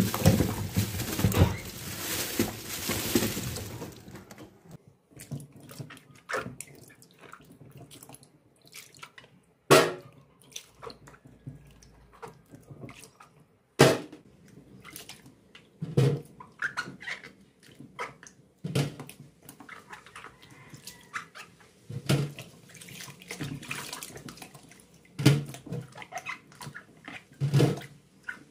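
Water splashing into a plastic basin for the first few seconds. After that, hands slosh and rub apples in the water, with scattered sharp splashes and knocks of apples against the basin.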